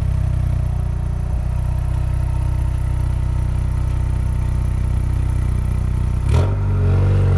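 Ford Focus ST Turnier's 2.3-litre four-cylinder running steadily at idle, heard at its unpolished tailpipe. About six seconds in there is a brief sharp sound, and after it the exhaust note is slightly louder.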